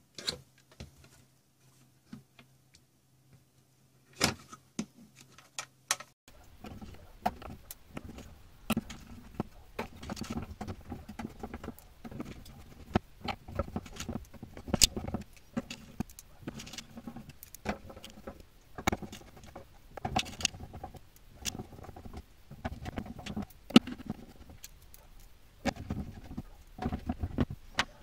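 Small metal screws clinking and rattling in a plastic dish as fingers pick through them, with scattered clicks of small metal parts being handled. Only a few sparse clicks at first, then steady busy clinking from about six seconds in.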